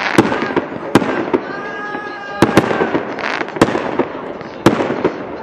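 Fireworks display: aerial shells bursting in sharp, loud bangs, about six of them at uneven intervals, with a steady crackle between the bursts.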